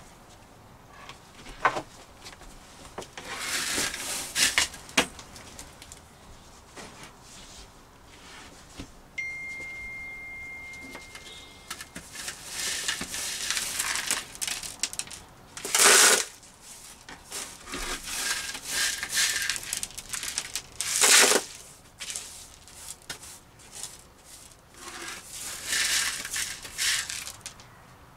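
Hand brush sweeping shattered glass into a plastic dustpan on a hard floor: uneven bursts of scraping and gritty clinking, with two sharper, louder swishes about sixteen and twenty-one seconds in. A steady high tone sounds for about three seconds near the middle.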